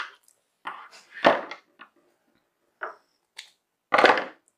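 Gold foil wrappers of chocolate coins crinkling and scissors being picked up and set down on a wooden table: a handful of short rustles and knocks, the loudest about a second in and about four seconds in.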